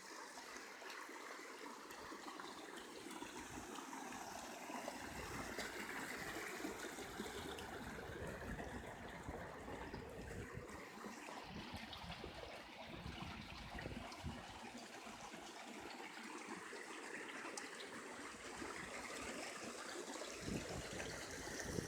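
Hot spring water running and trickling in a small stream, a steady low-level wash with uneven low rumbles.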